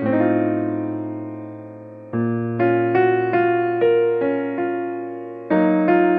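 Background music: a piano playing slow chords with a simple melody, each chord struck and left to fade before the next.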